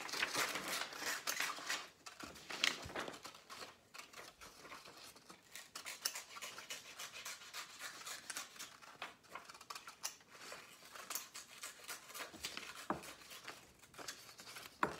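Paper being cut with small craft scissors: a long run of quick snips. Paper rustles as the sheet is handled in the first couple of seconds.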